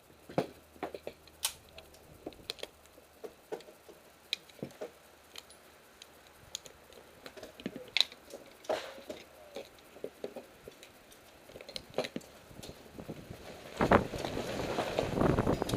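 A run of small, irregular clicks and taps, like objects being handled. About 14 s in, a louder rustling, shuffling noise sets in.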